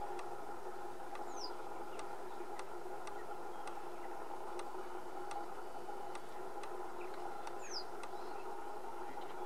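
A steady hum with faint scattered ticks. Twice, about a second and a half in and again near the end, a small bird gives a short, thin, high call that falls in pitch.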